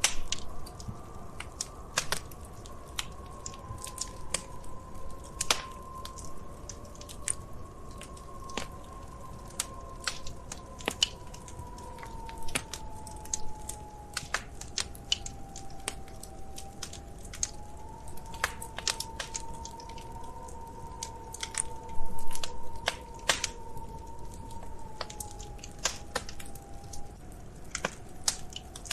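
Wood fire crackling in a fireplace: irregular sharp pops and snaps, several a second, over a low rumble, with a louder cluster of pops about three-quarters of the way through. Underneath, a faint whistling tone drifts slowly up and down in pitch.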